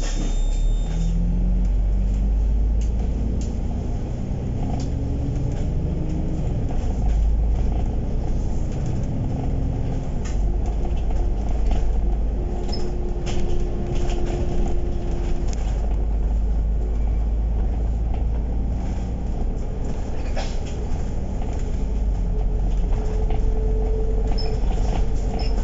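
Inside a KMB bus cabin while the bus is under way. The engine gives a deep, steady rumble, and a drivetrain whine rises in pitch in steps as the bus accelerates. Panels and fittings rattle and knock throughout.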